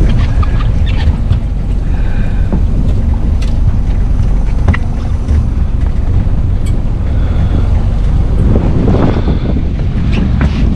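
Wind buffeting the microphone on a fishing boat out on open water, over a steady low rumble of the boat and the waves.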